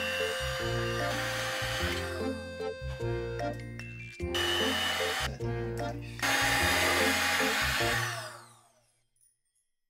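An electric hand mixer whirs as it beats cream cheese batter in a stainless steel bowl over background music. The mixer stops about two seconds in, starts again about four seconds in, and runs once more after a short pause. Then mixer and music fade out together to silence about nine seconds in.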